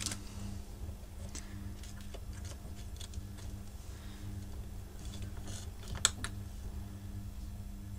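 Small clicks and taps of an electronic component and test leads being handled on a workbench, with two sharper clicks about six seconds in. A steady low electrical hum runs underneath.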